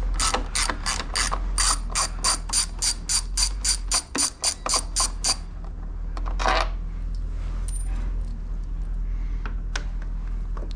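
Small hand ratchet clicking as it backs out a Torx 27 fairing bolt, a steady run of about three to four clicks a second that stops about five seconds in. A short scrape follows about a second later.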